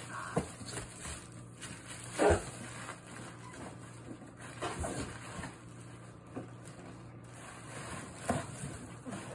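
Plastic air-cushion packing crinkling and rustling as it is handled inside a cardboard box, with one loud thump about two seconds in.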